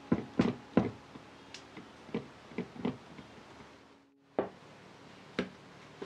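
Sharp knocks and taps, several in quick succession and then two more spaced about a second apart, from hands working dough in a stainless steel loaf pan on a wooden board.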